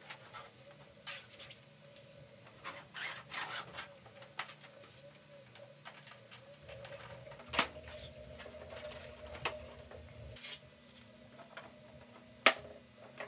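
Hands handling and fitting 3D-printed plastic model-plane parts: scattered light clicks and rubbing, with two sharper knocks, the louder one near the end, over a faint steady hum.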